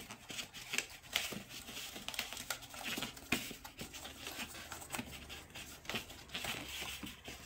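Stiff cardstock flaps being refolded and pressed down by hand, with irregular rustling and crinkling of paper.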